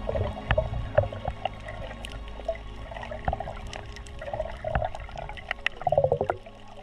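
Underwater water sounds while snorkelling: gurgling and bubbling with many scattered sharp clicks, and a louder burst of bubbling about six seconds in that stops suddenly.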